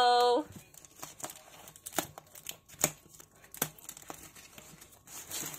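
Scissors snipping the plastic strapping on a cardboard box, then the strap being pulled off, with a few sharp clicks and snaps among rustling and crinkling. A voice holding a note fades out in the first half second.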